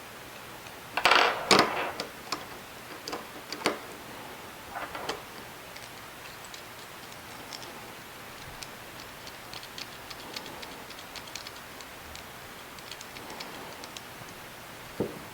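Small metal guitar tremolo parts (Floyd Rose-style saddles and their bolts) being handled and fitted: a burst of clattering clicks about a second in, a few sharper clicks after it, then many light scattered ticks.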